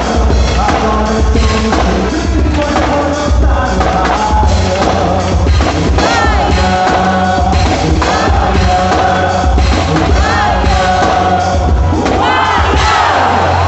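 Loud quadrilha (festa junina) dance music with singing over a heavy, steady bass beat, with crowd voices underneath.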